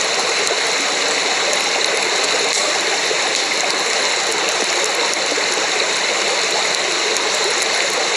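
Steady rushing of running water, like a forest stream, with no pauses or changes.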